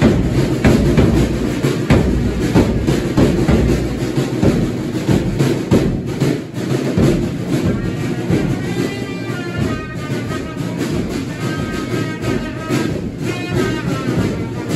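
Brass band playing: tubas and other brass over a steady beat of bass drums, tenor drums and snare. A higher wavering melody line comes in about eight seconds in.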